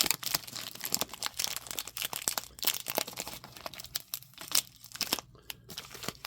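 Packaging being handled while tape is cut and torn to open it: an irregular run of crinkles and sharp crackles, thinning out after about four seconds.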